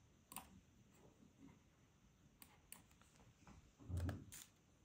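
Near silence with a few faint, sharp clicks from operating a laptop, and a soft low thump about four seconds in.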